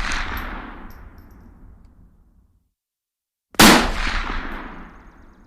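Rifle shots: the echoing tail of one shot dies away over about two seconds, then a second sharp rifle shot comes about three and a half seconds in and its echo fades slowly.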